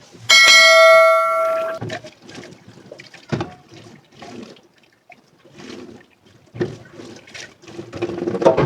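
Dishes being washed in a sink: a dish struck about a third of a second in rings out clearly for about a second and a half, then scattered clinks and knocks of dishes being handled, with water splashing.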